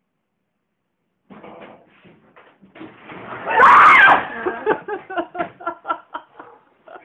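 A sudden loud yell of fright about halfway through as a man is jumped out at, followed by rapid bursts of laughter.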